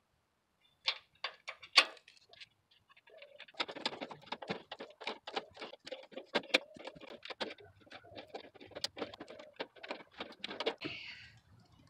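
Pliers clicking and scraping on a nylon-insert lock nut and the steel bracket as the nut is tightened: a few sharp metal clicks about a second in, then a quick, irregular run of small clicks and rattles.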